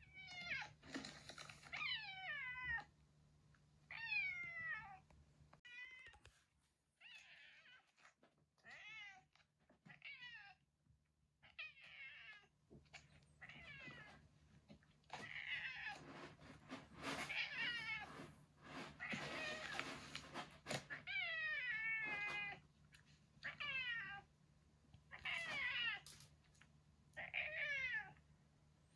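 A domestic cat yowling over and over: long drawn-out calls that fall in pitch, about one every one to two seconds, with a run of harsher, rougher calls in the middle.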